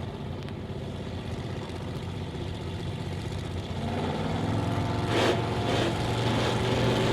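Supercharged Chrysler V8 in a competition Willys coupe drag car idling, then getting louder from about four seconds in, with a short sharp burst about five seconds in.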